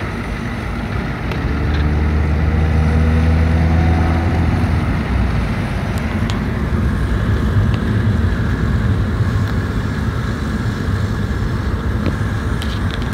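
Road and engine noise inside a moving car's cabin at about 40 mph. An engine note climbs slightly over the first few seconds, then gives way to a steady rumble of tyres and engine.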